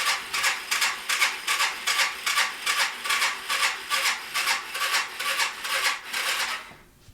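Electric starter of a 1993 Yamaha Riva 125 scooter cranking the single-cylinder engine: a rhythmic churning about three to four beats a second with a steady whine under it. It stops near the end without the engine catching.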